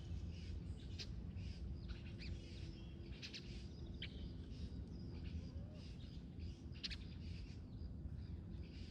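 Wild birds chirping: short, high chirps come every second or so, some in quick runs, over a steady low rumble.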